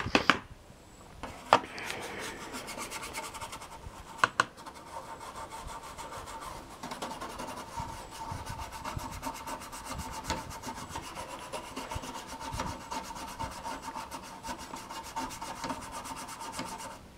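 Scrubbing marks off a computer case: steady, rapid back-and-forth rubbing strokes, with a few sharp knocks in the first few seconds.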